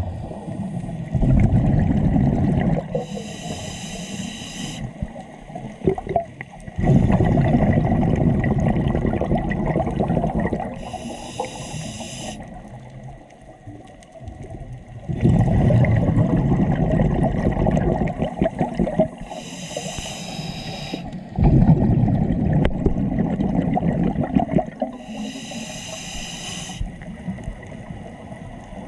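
Scuba diver breathing through a regulator: a short hiss on each inhale, then a longer rumble of exhaled bubbles, repeating about four times.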